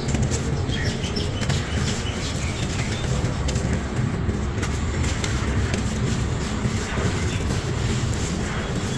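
Dry, crumbly sand-cement lumps crushed and rubbed apart by bare hands, giving a continuous gritty crunching with many small crackles as grains and crumbs trickle onto the dusty floor.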